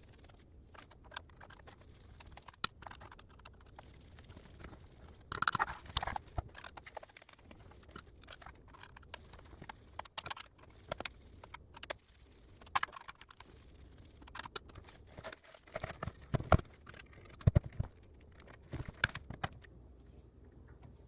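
Screwdriver and hand work on an LCD monitor's steel frame and plastic housing: scattered clicks, taps and light knocks as screws are taken out and parts handled, with a louder scrape about five seconds in.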